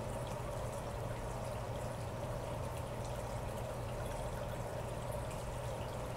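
Aquarium filter's outflow splashing and trickling steadily into the tank water, over a low steady hum.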